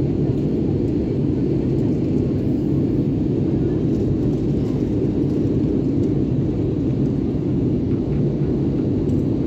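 Steady low roar inside a jet airliner's cabin in flight: the engines and the rush of air over the fuselage, heard from a window seat.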